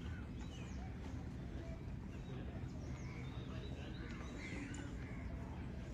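Birds calling, many short chirps and quick up-and-down whistles overlapping, over a steady low rumble.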